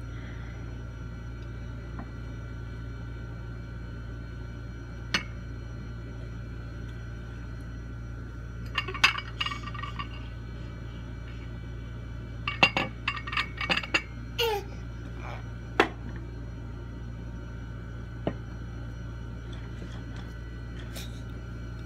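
Ceramic dishes and small sauce bowls being set down and moved on a table: scattered clinks and knocks, with a quick run of clinks about nine seconds in and another from about twelve to fourteen seconds, and a brief squeak. A steady low hum lies underneath.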